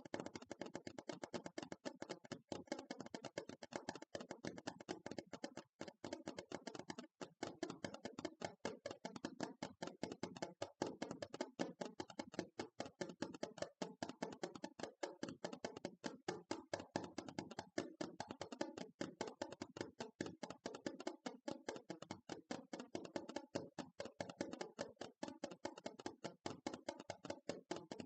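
Hands tapping rapidly on an object, a fast, continuous stream of short, light taps.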